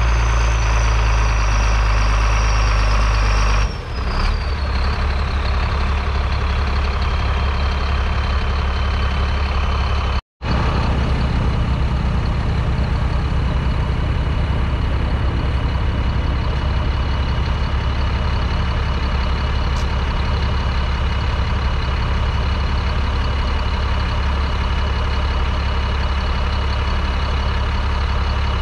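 John Deere 4455's 7.6-litre six-cylinder diesel engine running steadily under load while pulling a plough, with a deep hum and a high whine that falls in pitch and then holds steady. The sound cuts out for a moment about ten seconds in.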